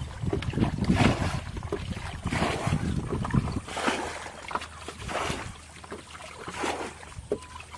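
Water splashing and sloshing in short irregular bursts, about one a second, with wind rumbling on the microphone until about halfway through.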